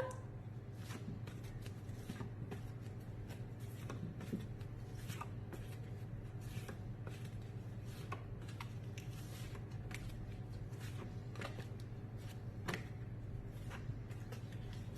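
Paper flashcards being handled and flipped, making faint, irregular soft clicks and rustles over a steady low hum.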